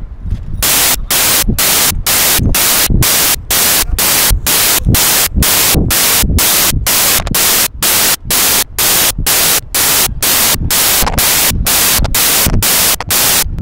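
Loud bursts of static hiss pulsing on and off nearly three times a second, each starting and stopping sharply.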